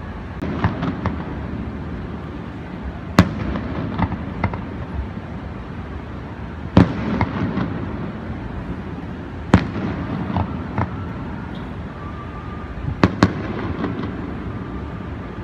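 Aerial fireworks shells bursting at a distance: a sharp report every few seconds, two close together near the end, with fainter pops in between over a steady low background rumble.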